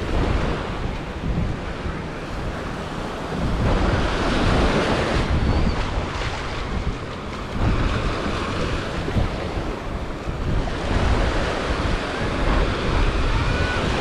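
Surf washing onto a beach, swelling louder every few seconds as waves come in, with wind buffeting the microphone as a low rumble.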